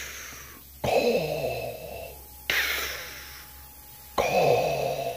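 Darth Vader-style respirator breathing: slow, hissing breaths in and out, a new one about every one and a half seconds, three starting within these few seconds.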